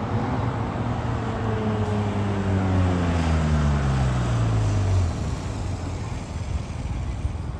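Police motorcycle engine passing close by, its pitch falling steadily for about five seconds before it cuts off suddenly, over a background of traffic noise.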